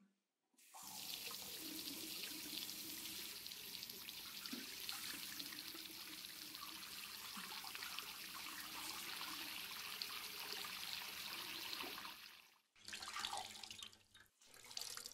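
Bathroom sink tap running steadily into the basin over a cloth being rinsed, shut off about twelve seconds in; then two short bursts of dripping and splashing as the wet cloth is wrung out.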